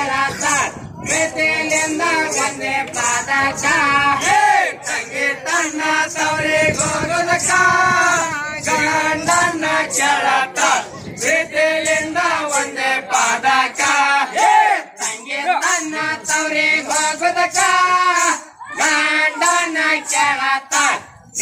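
A group of men singing a Rivayat pada, a North Karnataka Muharram folk song, in unison. The melody goes in phrases with short breaks between them.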